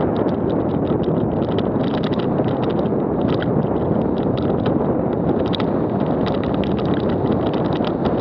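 Wind rushing over a helmet camera's microphone while a downhill mountain bike runs fast over a dry dirt and gravel trail. The tyres hiss on the loose surface, and the bike clatters with frequent small knocks and rattles as it goes over the rough ground.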